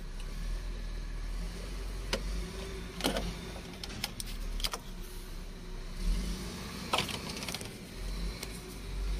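Scattered sharp clicks and knocks of hands handling the plastic fuse and relay box of a dump truck, over a low steady rumble.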